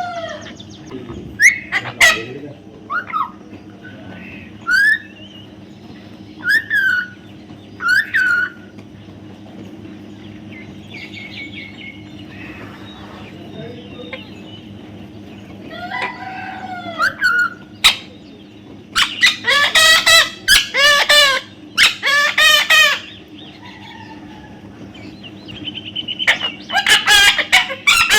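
Parrot calling: scattered short squawks and chirps, then a run of loud, harsh, repeated screeches past the middle and another near the end.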